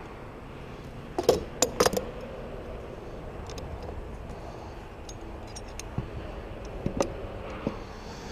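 A few sharp metal clinks and knocks: four close together about a second in, then a few lighter ones between six and eight seconds in, over steady background noise.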